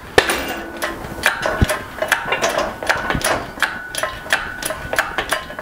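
One-ton shop crane being worked to lift a heavy air compressor on chains: a steady run of sharp metallic clicks and clinks, about three a second, each with a short ring.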